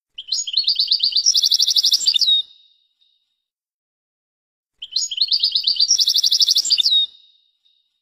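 European goldfinch singing two matching song phrases, the second a couple of seconds after the first. Each is a quick run of high chirping notes that speeds into a faster trill and ends in a short drawn-out whistle.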